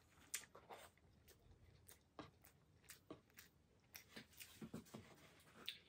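Faint, irregular wet clicks and smacks of a person chewing a mouthful of rice and pork belly with her mouth closed.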